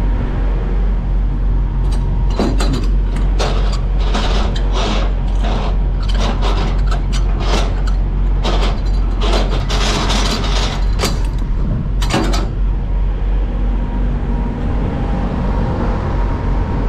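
Semi-trailer landing gear being cranked by hand: a string of sharp clicking, grinding strokes from the crank's gearbox from about two seconds in until about twelve seconds. An idling diesel engine drones steadily underneath.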